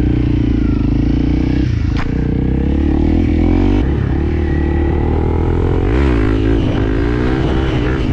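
Honda CRF300L single-cylinder dirt bike engine running while riding, its revs rising and falling.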